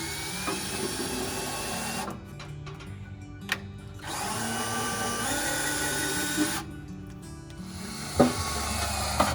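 Power drill boring a mounting hole, running in three long bursts with short pauses between. The motor whine rises in pitch at the start of the first burst, and a sharp click comes about eight seconds in.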